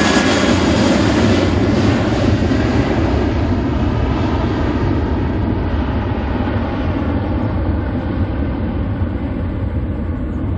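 Boeing 737-800's CFM56-7B jet engines at takeoff thrust as the airliner climbs away: a loud, deep rumble that slowly grows quieter, while the hiss above it fades out as the aircraft recedes.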